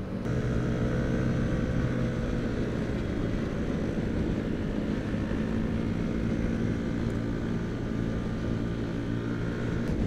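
Yamaha scooter's 155 cc single-cylinder engine running steadily at cruising speed, with wind and road noise.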